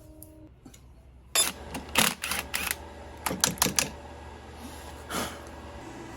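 A quick run of sharp clicks and knocks, about a dozen over two and a half seconds, from metal parts being handled at a workbench, then one more knock near the end.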